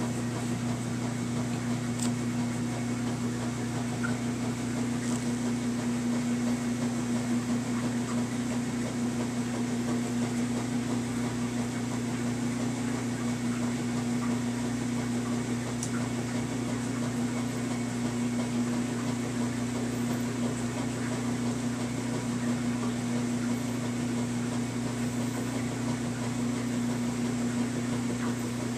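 Steady low mechanical hum, unchanging throughout, with a couple of faint ticks.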